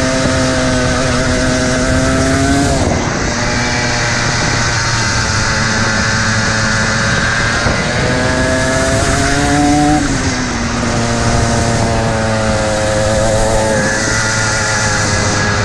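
Single-cylinder 125cc two-stroke Rotax kart engine at racing speed, its pitch climbing on each straight and dropping twice, just before three seconds and again around ten seconds in, as the driver lifts for corners. Wind rushes over the microphone throughout. The driver found the engine's pickup out of corners sluggish in the heat.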